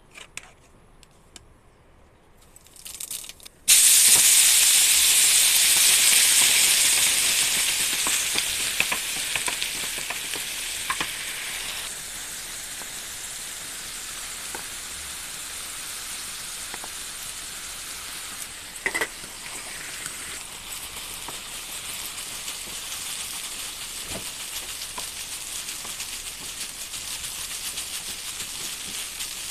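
Spring onions and rice frying in an iron kadhai. A loud sizzle starts suddenly a few seconds in and fades over several seconds to a steady sizzle, with occasional clicks and scrapes from the stirring spatula.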